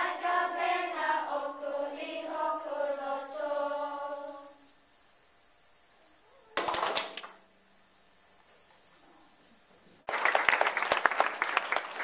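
A group of children singing a Tongan song, the singing ending about four and a half seconds in. After a brief burst of noise around seven seconds in, an audience applauds from about ten seconds in.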